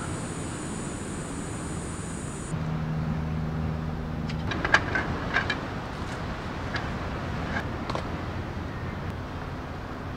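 A steady high buzz that stops about two seconds in, then a brief low hum, then a run of sharp clicks and knocks as a wooden folding camp table is handled.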